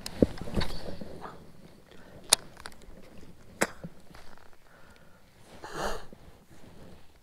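Handling noise from a baitcasting rod and reel in a kayak: a few sharp clicks and knocks, then a short hissing rush about six seconds in.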